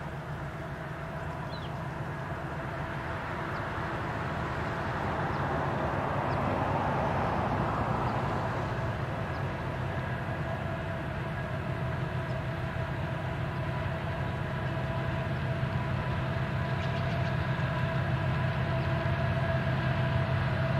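Diesel locomotives of a Union Pacific freight train running unseen, a steady engine drone that grows gradually louder over several seconds.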